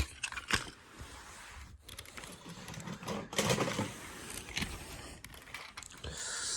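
Small plastic clicks and rattling from toy cars being handled and pushed about by hand, busiest about three seconds in.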